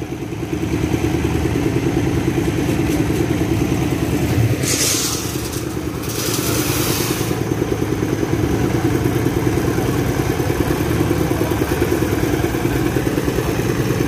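Engine of a concrete mixer running steadily with a fast, even chug. Two short bursts of scraping and rushing noise come about five seconds and six to seven seconds in.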